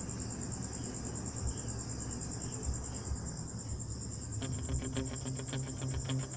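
A steady, high-pitched insect trill, like crickets. About two-thirds of the way in, music with a quick, even pulsing beat and low bass notes starts.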